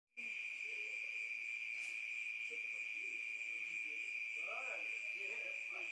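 Steady, high-pitched chorus of night insects such as crickets, one unbroken shrill tone. Faint, murmured voices join in about four seconds in.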